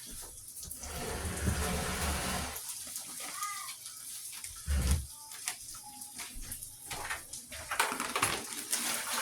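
Shrimp, rice and onions frying in butter in a pan, a hissing sizzle with knocks and clicks of a utensil stirring against the pan.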